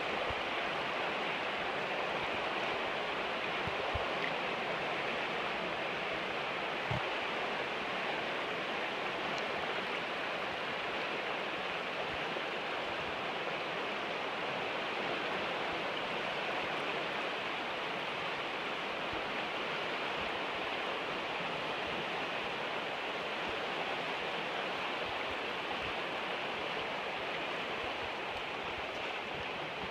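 Rock Creek, flowing at about 2500 cubic feet per second, rushing steadily over riffles.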